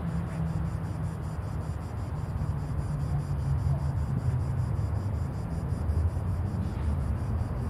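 Outdoor ambience: an uneven low rumble throughout, with a faint, fast, even high pulsing of insects over it.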